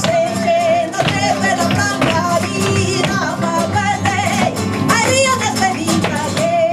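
Live sevillanas: a flamenco singer's wavering melody with vibrato over flamenco guitar, with sharp percussive clicks throughout.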